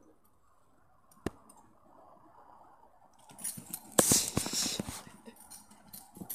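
Two dogs play-fighting on grass: a single click about a second in, then a flurry of scuffling, rustling and small clinks, loudest about four seconds in, tailing off into occasional clicks.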